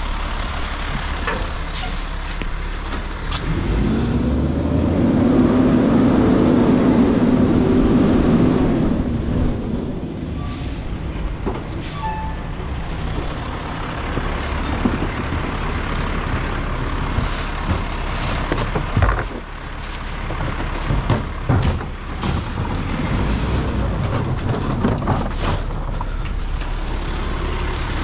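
Garbage truck's engine running, revving up for several seconds about four seconds in and then settling, with short sharp air-brake hisses and knocks in the second half.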